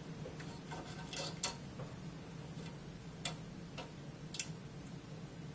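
Small plastic multi-pin cable connector being unlatched at its release tab and pulled apart: about six light, separate clicks spread over a few seconds, over a faint steady low hum.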